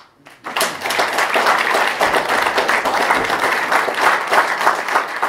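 Audience applause: many people clapping, breaking out sharply just after the start and keeping up steadily.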